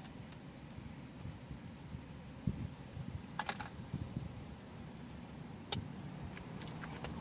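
Road traffic passing, heard as a steady low rumble, with a few short light clicks and taps in the foreground about halfway through and near the end.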